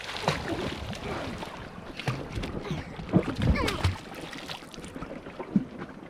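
Water splashing and sloshing around an inflatable raft as a swimmer kicks behind it and pushes it along, with a few brief vocal sounds.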